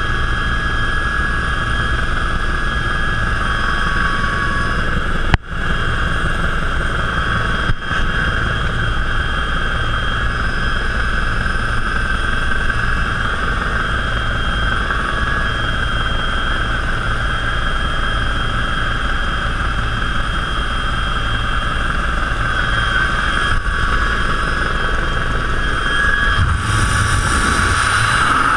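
Steady, loud helicopter cabin noise: turbine whine and rotor drone. The sound cuts out momentarily twice a few seconds in, and grows louder near the end as the open door comes into view.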